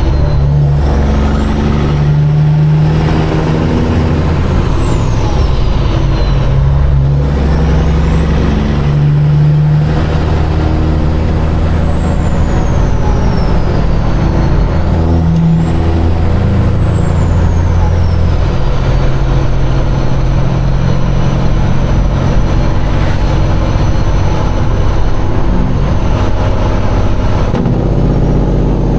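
Caterpillar diesel of a straight-piped Peterbilt heard from inside the cab, pulling the truck up through the gears. The engine note steps up and falls back at each shift, with brief dips as the throttle comes off. A turbo whistle climbs and falls with each gear, then settles into a steady high whine for the last ten seconds or so as the truck holds speed.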